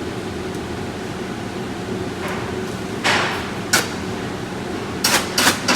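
Stick-welding arc being struck in short crackling, hissing bursts over a steady hum: one lasting about half a second about three seconds in, a sharp one just after, then several quick ones near the end.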